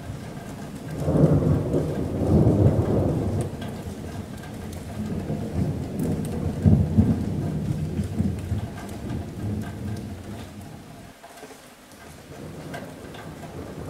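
Rolling thunder over steady rain falling on a metal roof. The thunder swells up about a second in and again about five seconds in, then dies away before the end while the rain goes on.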